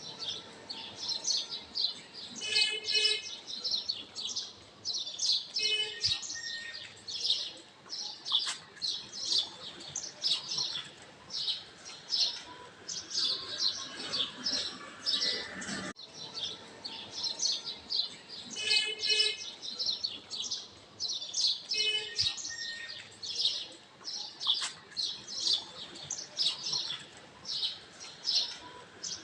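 Birdsong ambience: many small birds chirping and twittering in quick, high-pitched calls, as a recording that loops about every 16 seconds.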